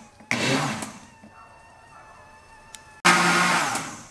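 Countertop blender run in short pulses on condensed-milk pudding batter: one burst near the start and another about three seconds in, each starting suddenly and winding down within about a second. Between the bursts a faint steady whine remains.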